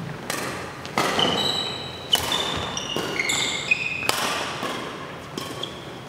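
Doubles badminton rally: rackets smack the shuttlecock about once a second, six strikes, each echoing briefly. Sneakers squeak sharply on the court floor between shots.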